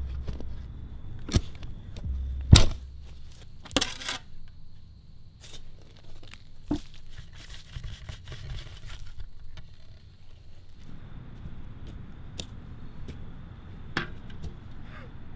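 Scattered sharp clicks, scrapes and crackles with a deep thud about two and a half seconds in, giving way near the end to a steady outdoor background noise.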